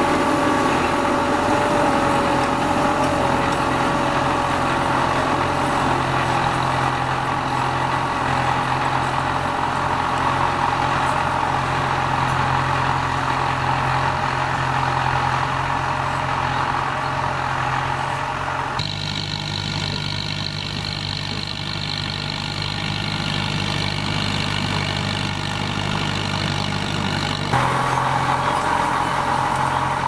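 Farm tractor's diesel engine running steadily under load while pulling a disc plough through dry soil. The engine note changes abruptly twice, about 19 and 27 seconds in.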